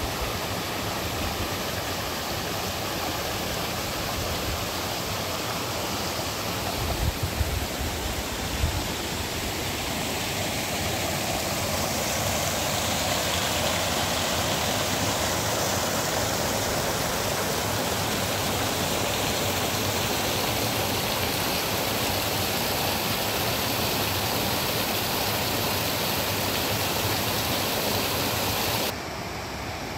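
River water running in a steady rush. A few low knocks come about a quarter of the way in, and the sound drops abruptly just before the end.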